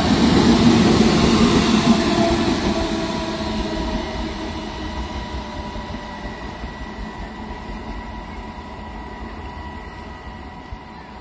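WAG-9 class electric locomotive running light, with no train behind it. It passes close with a rumble of wheels on rail, then recedes, its steady electric whine fading away.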